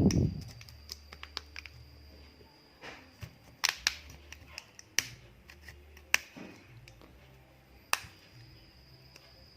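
A dull knock, then a series of sharp, irregular plastic clicks as a pry tool works along the edge of an Oppo A5S phone's plastic middle frame, prising its clips apart.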